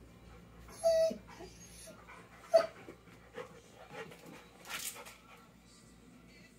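A puppy whimpering and whining in a few short calls, with one sharp yelp about two and a half seconds in.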